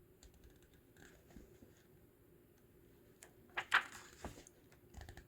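Quiet room tone with a few brief soft rustles, the loudest a little past halfway.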